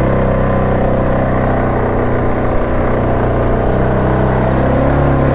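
Yamaha Grizzly 700 ATV's single-cylinder engine running steadily at low speed while crawling through deep, muddy ruts, its pitch wavering slightly. A brief knock sounds about two and a half seconds in.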